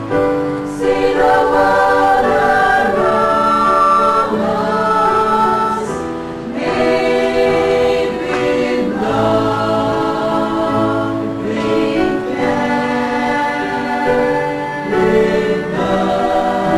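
Church choir singing in harmony, holding chords in long phrases with short breaks about six and twelve seconds in.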